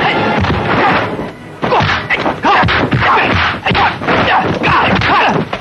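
Kung fu film fight sound effects: a rapid string of dubbed punch and block whacks and thuds, with short shouts from the fighters between the blows.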